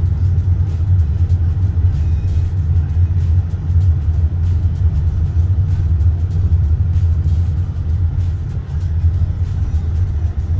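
Steady low rumble of a Honda BR-V's engine and tyres heard inside the cabin while driving, with music playing over it.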